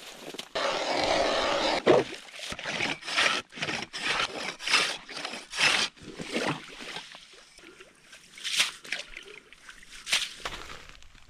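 Irregular scraping and crunching on ice and snow: one longer scrape, then a string of short uneven scrapes that grow sparser toward the end.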